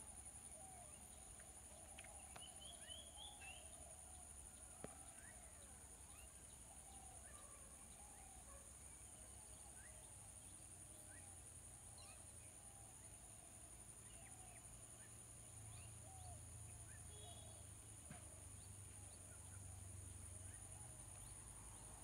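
Faint, scattered soft chirping calls from a flock of lesser whistling ducks, many short calls one after another, with a brief higher warble about two seconds in.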